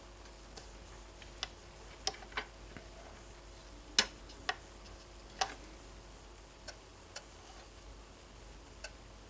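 Irregular small clicks and taps, about a dozen, from handling tools and small parts at a workbench. The sharpest is about four seconds in, over a faint steady hum.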